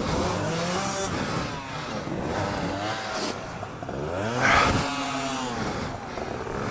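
Suzuki DR-Z400 single-cylinder four-stroke engine revved repeatedly, pitch rising and falling, the biggest rev about four and a half seconds in, as the dirt bike sits stuck in deep mud with its rear wheel digging in.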